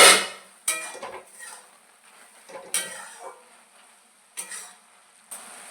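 A cooking utensil scraping and clinking against a kadai as a nearly dry Malabar spinach curry is stirred, in several separate bouts, with a loud clank at the very start. A steady sizzle sets in near the end.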